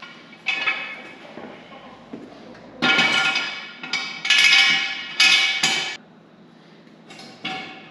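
Steel jack stands clanking and ringing as they are set out and adjusted under the machine: about half a dozen metal clanks, the loudest cluster in the middle.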